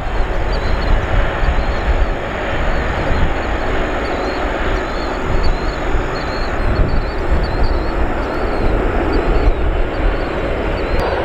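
Boeing 777 twin-engine jetliner taxiing at low power: a steady rushing jet-engine noise over a low, fluttering rumble.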